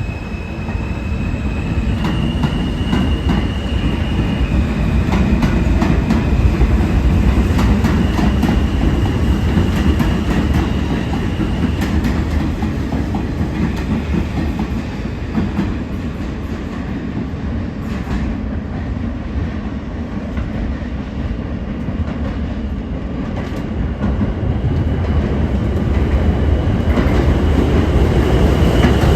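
An R160 subway train running on the track, loud, with wheels clacking over the rail joints. A high steady whine sounds in the first several seconds. The noise eases a little midway and swells again near the end.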